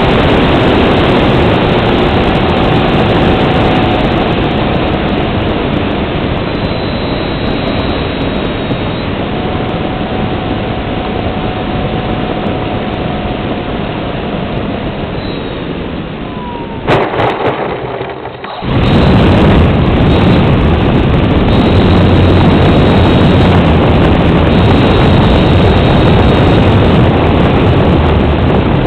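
Engine and propeller of an RC Sukhoi Su-26 aerobatic model, heard from on board, running as the plane comes in and lands. The noise fades gradually, then drops briefly with a few clicks about 17 seconds in, and the engine runs loud and steady again with the plane on the ground.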